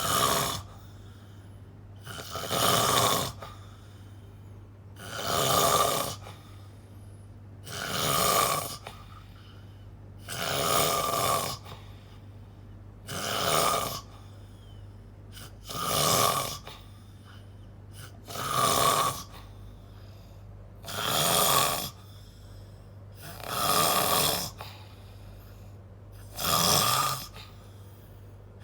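Person snoring loudly and regularly: about ten snores, one every two and a half seconds or so, each lasting about a second.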